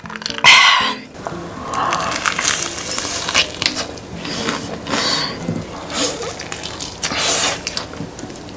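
A gulp of iced cola followed by a loud breathy burst about half a second in, then fried chicken being chewed: a string of short crunchy, squishy mouth sounds.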